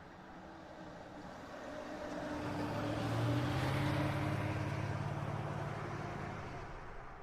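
A car passing at low speed, about 15 mph: its engine and tyres come up, are loudest about three to four seconds in, then fade away. It eases off as it approaches and pulls away under light acceleration as it goes by.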